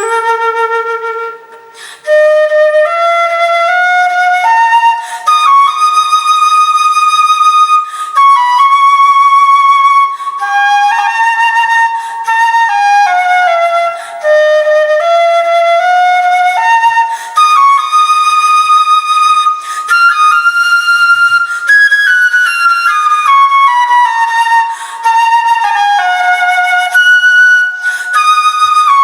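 Solo flute playing a slow melody of held, gliding notes. A short break comes about two seconds in, then the playing goes on without pause.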